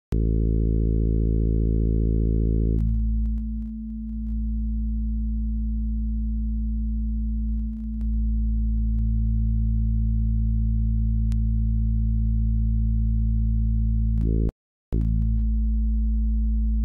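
Sustained low drone from the Moselle software synthesizer's wave table oscillator, played straight out with no envelope, filter or effects. Its tone changes as the harmonics in the wavetable are redrawn: the higher overtones drop away about three seconds in, and the bottom fills out about nine seconds in as the fundamental is strengthened. A few faint clicks, and a brief cut-out shortly before the end.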